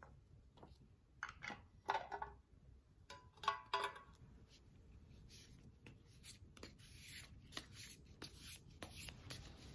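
Hands handling a metal tarot card tin and its deck: a few sharp clicks and scrapes in the first four seconds as the tin is handled and opened, then lighter rustling and tapping as the cards are taken out.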